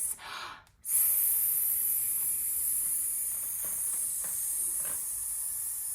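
A woman hissing a long, drawn-out "sss" like a snake, the S sound of speech held with teeth together. It begins about a second in, after a brief voiced sound.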